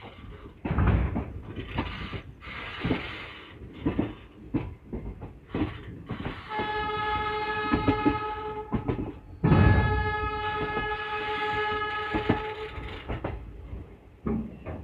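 Train horn sounding two long blasts, the second starting moments after the first ends. Throughout, the coach wheels clatter and knock over rail joints and points.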